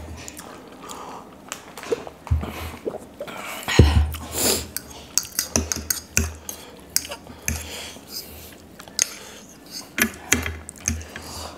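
Metal forks clinking and scraping against ceramic plates and bowls as noodles are served and eaten: an irregular string of clinks and knocks with a few dull thumps.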